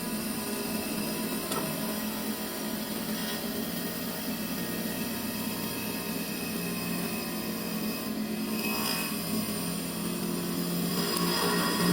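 Industrial CNC wood lathe running and turning a wooden table leg: a steady machine hum with the hiss of the tools cutting the wood.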